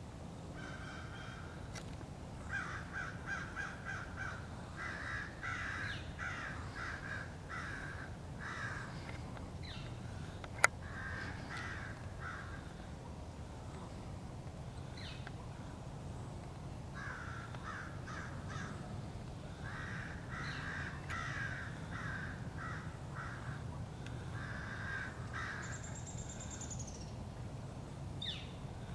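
Crows mobbing a bald eagle, giving rapid series of short caws in two long bouts with a pause between. A single sharp click about ten seconds in.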